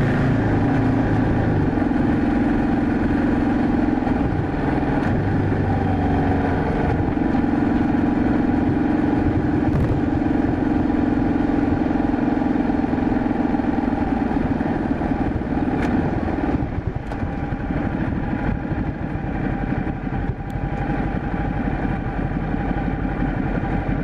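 Ducati Multistrada motorcycle engine heard from the rider's position, running at a steady cruise as a continuous drone. About two-thirds of the way through, the engine note drops away as the bike slows.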